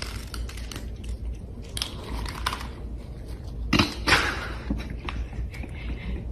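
Irregular clicks and crunching noises, with a louder burst of noise about four seconds in.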